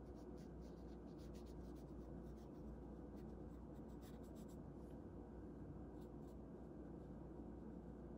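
Watercolour brush stroking across watercolour paper: faint, light scratchy strokes that come thick for about five seconds, then a couple more about a second later, over a low steady hum.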